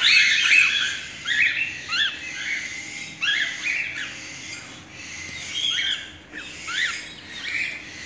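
Cockatiels chirping and squawking: short, sharp calls that rise and fall in pitch, repeated irregularly, denser in the first half.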